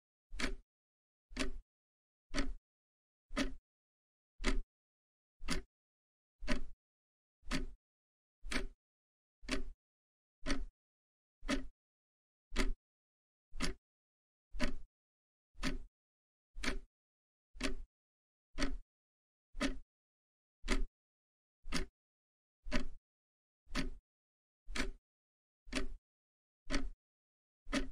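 Countdown timer sound effect: a short tick about once a second, with dead silence between the ticks, marking off the seconds of a countdown.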